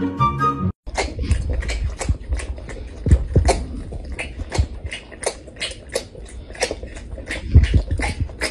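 A tiger sucking on a feeding bottle: a steady run of smacking, sucking clicks, about three a second, with soft low thumps. Music plays briefly at the start and cuts off just before one second in.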